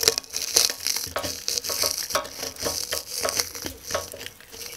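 Charred, singed feathers crumbled between the fingers into the neck of a small plastic bottle: a run of irregular, dry crackles and crunches.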